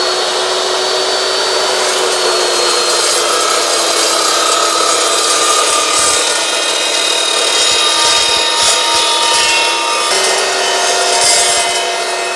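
Evolution S355MCS 14-inch dry-cut metal chop saw running under load, its blade cutting through rusty 2x3 rectangular steel tubing with an eighth-inch wall. The motor makes a steady whine over a loud, even cutting noise, and the pitch steps up slightly about ten seconds in.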